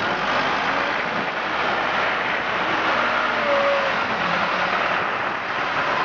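Engine-driven road-works machinery running at a steady level, a dense even noise with no distinct knocks or changes.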